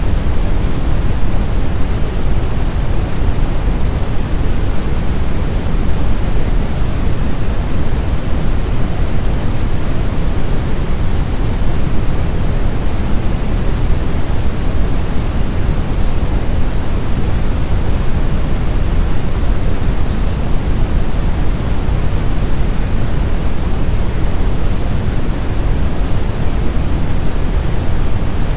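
Multi-layered brown noise: a steady, smooth deep rumble with a softer hiss above it.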